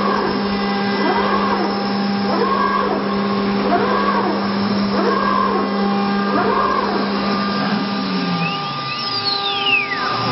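CNC router spindle running at a steady pitch, with a sound that rises and falls every second or so. About eight seconds in, the spindle winds down, its hum and whine falling in pitch.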